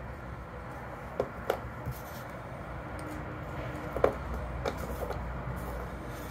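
Small metal hex key clicking and tapping against a plastic scooter display housing as a bracket screw is worked loose: a handful of sharp light clicks, the loudest about four seconds in, over a steady low background hum.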